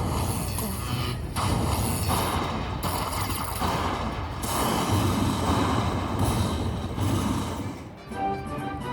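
Slot machine sound effects: a run of loud, crackling, rumbling bursts of noise, each about a second long with short breaks between. About eight seconds in they stop and a short tune with clear notes starts.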